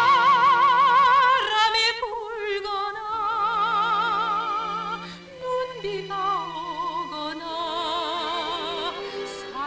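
A woman's voice holds a high sung note with wide vibrato, ending about a second and a half in. Musical accompaniment then carries on with a slower, quieter melody in the style of a stage-musical ballad.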